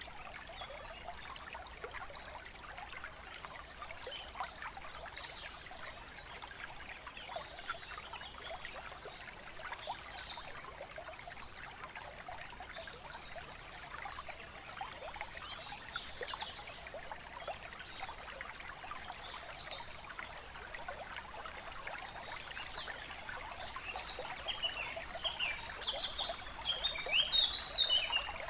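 A trickling stream with birds chirping: short high chirps come every second or so, and a flurry of louder, quicker bird calls rises near the end.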